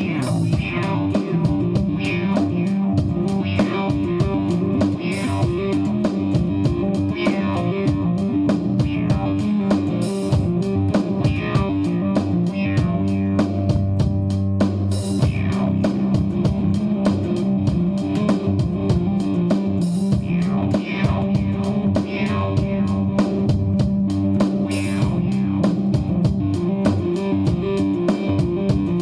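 Rock music with electric guitar, bass and a drum kit keeping a steady beat.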